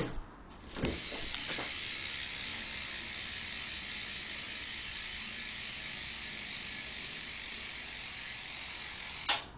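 Quando rear hub on a BMX bike freewheeling as the rear wheel spins, its ratchet clicking so fast that it blends into a steady high buzz. The buzz starts about a second in and stops near the end, with a knock at each end.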